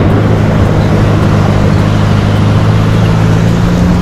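Off-road 4x4 vehicle driving, its engine droning steadily under a dense rushing noise from tyres and wind. About three seconds in, the engine note shifts to a different pitch.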